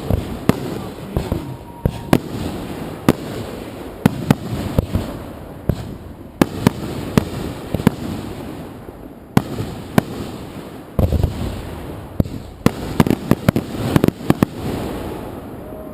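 Consumer fireworks going off in quick, irregular succession: sharp bangs of bursting shells, a few each second, over continuous crackle. A dense volley comes about eleven seconds in, then the bangs thin out near the end.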